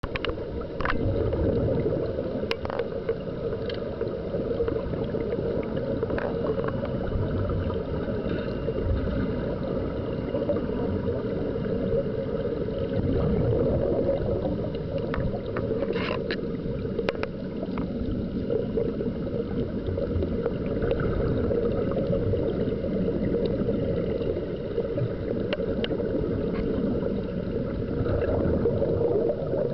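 Underwater: a steady, muffled rumble and bubbling of air escaping from surface-fed diving helmets, with a few sharp clicks scattered through.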